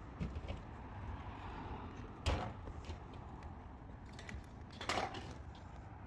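Two knocks about two and a half seconds apart, the first sharp and the loudest, the second longer and rougher, with a few small clicks, over a faint low rumble.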